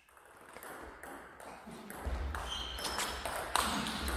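Table tennis rally: the plastic ball clicks sharply off the rackets and the table in a quick string of hits.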